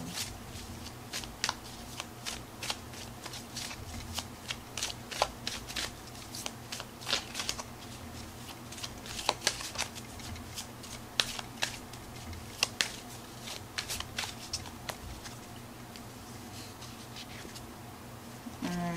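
A deck of oracle cards shuffled by hand, making a long run of quick, irregular crisp snaps and flicks as the card edges strike and slide past each other. A faint steady low hum sits underneath.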